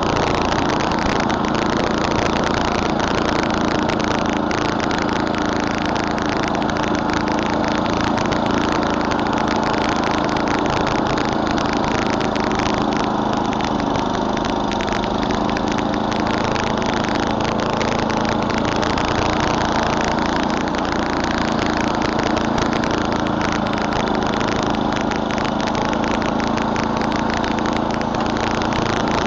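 Murray Select snowblower's 11 hp Tecumseh engine running steadily at an even speed.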